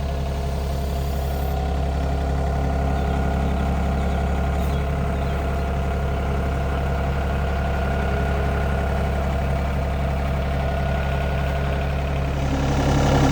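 An engine running steadily at a constant speed, with an even low hum. It grows a little louder, with added hiss, near the end.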